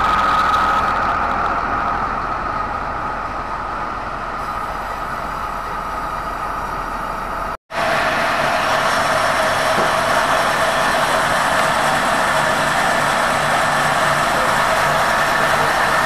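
Sawmill machinery running steadily: a large band saw and its drive, with a high whine over the drone. The sound drops out for a moment about halfway through, then comes back a little louder and steadier.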